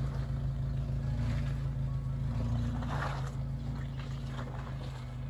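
Jeep Wrangler engine running at a low idle as it crawls down a steep rocky trail, the sound slowly fading as it moves away, with a brief crunch about three seconds in.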